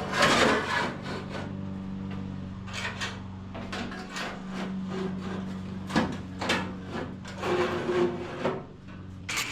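Irregular clattering and scraping of parts and tools being handled over a steady low hum. Just before the end a loud, continuous hissing noise starts.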